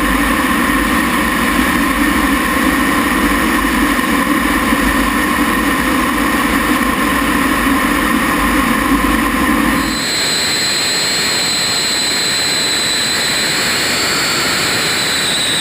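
T-33's Allison J33 turbojet running steadily and loud, with a low rumble and a droning tone. About ten seconds in the sound changes suddenly: the rumble drops away and a high, steady whine takes over.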